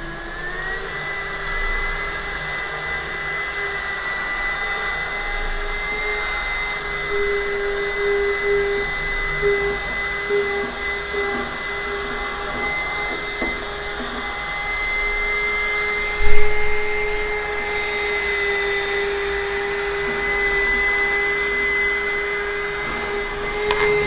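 Mini USB vacuum cleaner running steadily as it sucks up dust: its small fan motor gives a constant high whine over a rush of air. A single sharp knock comes about two-thirds of the way through.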